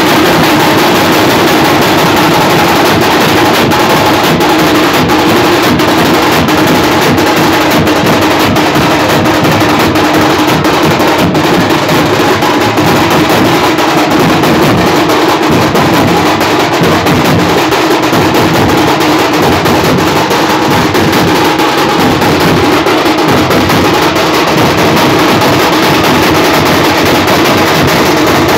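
Several drums with white heads beaten together with sticks in a fast, dense rhythm, loud and without pause.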